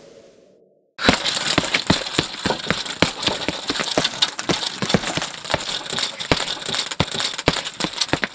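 Dense, irregular rattling of sharp clicks and knocks, starting abruptly about a second in after a faint low hum fades out.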